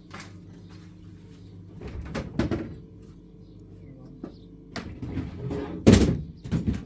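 Knocks and thumps: a cluster about two seconds in and another near the end, the loudest about six seconds in, over a faint steady hum.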